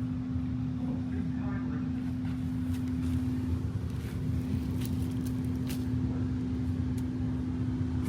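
Vacuum cleaner running steadily, its motor holding one constant tone over a low hum, with a few faint clicks scattered through.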